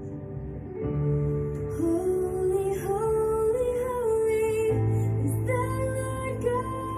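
Background music for a dance workout: a song in which a woman's voice sings long held notes over a bass line, with the melody coming in about a second in.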